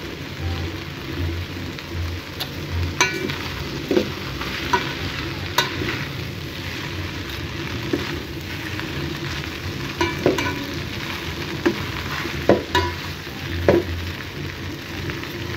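Boiled spaghetti frying in oil and butter in an aluminium pot: a steady sizzle, with a metal fork clinking and scraping against the pot at intervals as the noodles are tossed.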